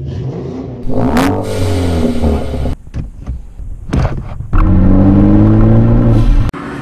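Turbocharged car engine revving and accelerating in a few short cuts: the pitch falls away after a rev about a second in, then climbs slowly under acceleration in a louder stretch that cuts off abruptly near the end.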